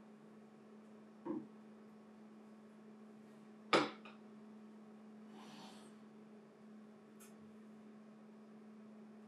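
A ceramic plate set down on a wooden bar counter with a light clink about a second in, then a sharper clack as a cocktail glass is set onto the plate, over a steady low hum.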